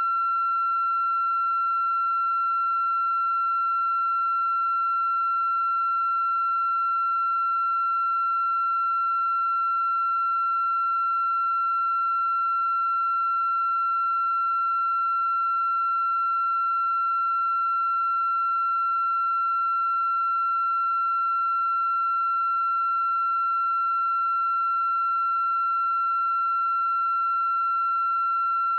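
A steady, unchanging electronic tone at one high pitch, with fainter overtones above it.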